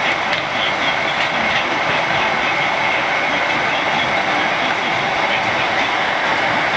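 Steady din of a street-food stall: a continuous rumbling hiss with no pauses.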